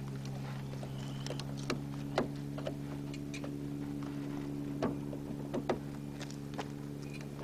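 Scattered small clicks and taps of a screwdriver working a terminal screw on a solar charge controller as a wire is tightened down, the sharpest about two seconds in and a cluster around five seconds in. A steady low hum runs underneath.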